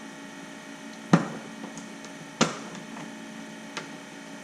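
Sharp plastic clicks as a plastic pry tool pops a Tesla Model Y's dashboard side trim piece off its clips: two loud snaps about a second and a half apart and a fainter tick near the end, over a steady low hum.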